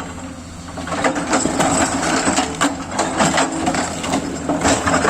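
Kato excavator's diesel engine running steadily, with many irregular sharp knocks and scrapes as the machine works the large rocks.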